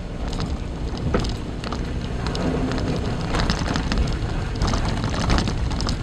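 Car driving over a rough unpaved forest road, heard from inside the cabin: a steady low rumble of engine and tyres with frequent small knocks and rattles from bumps in the road.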